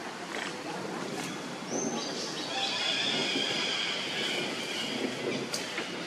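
A monkey giving a shrill, drawn-out scream that starts about two seconds in and holds for about three seconds, over a steady background hiss.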